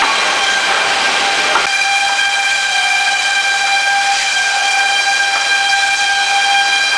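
Wood planer running with a steady high-pitched whine over a hiss. About a second and a half in, a lower rushing noise drops away, leaving the whine.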